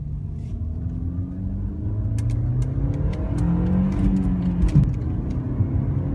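Car engine revving, its pitch climbing and falling several times and loudest a few seconds in, with a few sharp ticks over it.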